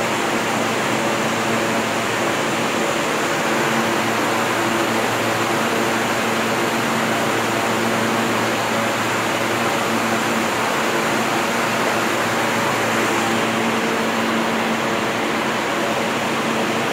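R160 subway train standing at the platform with its doors open, its air-conditioning and auxiliary equipment giving a steady whirring hum with a constant low tone.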